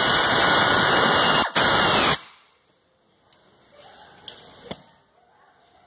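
Pneumatic ratchet running with a loud hiss of air, driving in a bolt that joins the engine to the transmission bell housing. It pauses briefly once and stops about two seconds in, followed by a few faint clicks.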